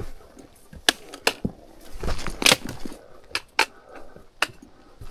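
Footsteps over a rocky trail: irregular sharp clicks and knocks, about seven in five seconds, with softer crunching between them.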